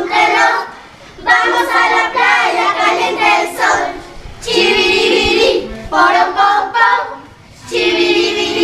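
A group of children and youths singing a Spanish song together, in sung phrases broken by short pauses about a second, four seconds and seven and a half seconds in.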